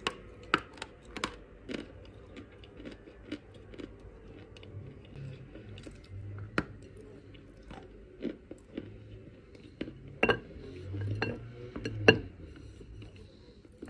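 Chunks of chalk being bitten and chewed close to the microphone: sharp, dry crunches at irregular intervals between softer chewing, the two loudest crunches near the end.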